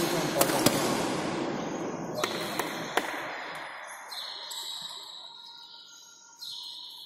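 Badminton rally ending in a smash: sharp cracks of racket on shuttlecock and the shuttle striking the court, echoing in a hall, over a noisy wash that fades away within about three seconds.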